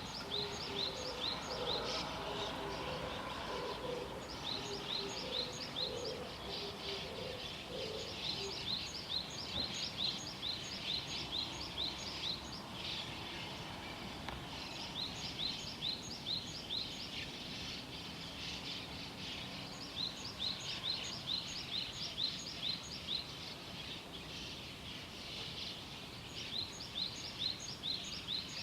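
Small songbirds singing in the open: bouts of rapid, high, sharp chirps repeated several times a second, each bout lasting a few seconds with short pauses between them. A lower repeated call joins in over the first several seconds, over a steady outdoor background hiss.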